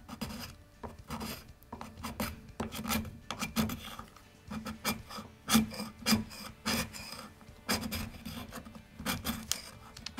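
Barrel channel tool scraping wood from the inletting of a wooden rifle stock in repeated short, irregular strokes. It is taking off the surface of the wood at the action's contact points to give the bedding compound a good surface for adhesion.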